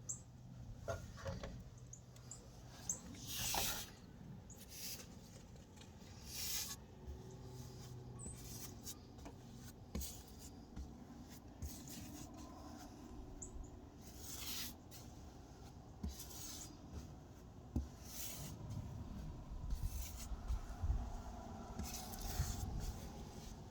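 Paintbrush strokes spreading primer onto a cedar beam: irregular, faint scratchy swishes of bristles on wood, with a few light knocks.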